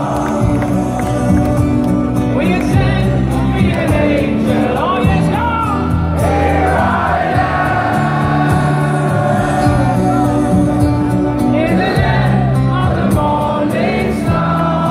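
Rock band playing a slow ballad live, held keyboard and guitar chords under a male lead singer whose voice rises and falls in long sung lines.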